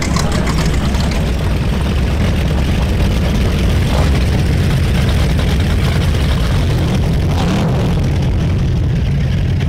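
Powerboat engines running: a steady, loud low drone with a rushing hiss over it.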